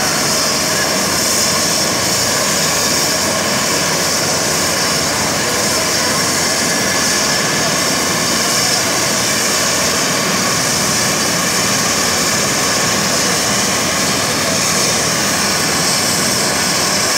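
Eurocopter EC135 helicopter's twin turbine engines running on the ground: a steady, loud, high-pitched turbine whine over a continuous rush of noise.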